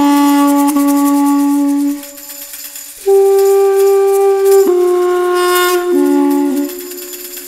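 Background music: a solo wind instrument playing slow, long held notes, with a short quieter gap about two seconds in before the next phrase.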